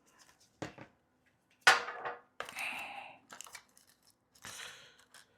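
Handling noises from rummaging through parts: a few short rustles, crinkles and knocks, the loudest about two seconds in.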